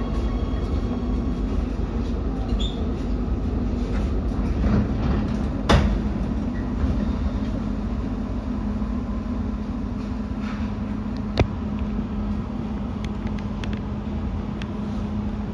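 Oslo Metro MX3000 train coming to a halt at a station platform and standing, heard from inside the carriage: a steady electrical hum over a low rumble. Two sharp clicks come about six and eleven seconds in.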